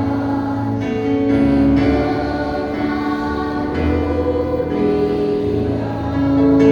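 Children's Sunday-school church choir singing a hymn in held, sustained notes, with a steady low accompaniment underneath.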